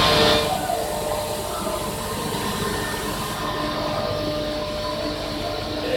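CNC vertical machining center running, a steady mechanical hum with several constant tones over a low rumble. A loud hiss stops about half a second in, and the higher hiss drops away about three and a half seconds in.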